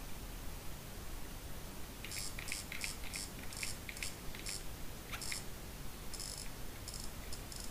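BlackBerry Bold's keys and navigation pad being pressed by thumb to scroll a web page: a quick run of about eight short, high-pitched clicks starting about two seconds in, then a few more near the end.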